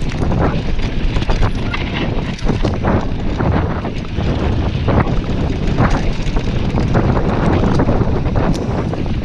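Wind buffeting the camera microphone on a fast mountain-bike descent, over a steady rumble of tyres on a dirt singletrack, with frequent short rattles and knocks as the bike runs over bumps.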